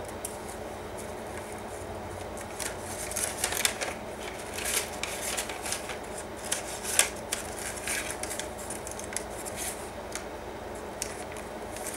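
Paper rustling and crinkling as hands handle small scalloped paper tags and work them in and out of a kraft-paper pocket. It comes as a run of quick, crisp rustles, busiest between about three and eight seconds in.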